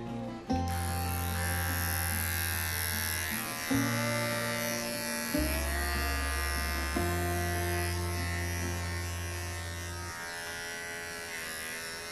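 Electric dog clippers buzzing steadily as they shave a Yorkshire terrier's leg and belly coat.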